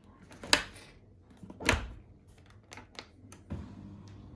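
Knocks and clatter of a dishwasher's racks, door and dishes being handled: two loud knocks about half a second and nearly two seconds in, lighter clicks between, and a duller thump near the end.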